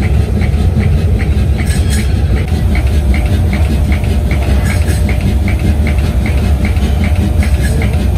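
Machinery running with a steady low rumble and a regular light ticking, about two to three ticks a second.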